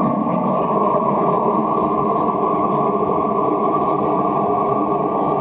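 Hose-fed gas torch burning steadily with an even rushing noise, its flame played on the rim of a freshly thrown clay pot to dry and stiffen the rim so it will bear the weight of the section to be added on top.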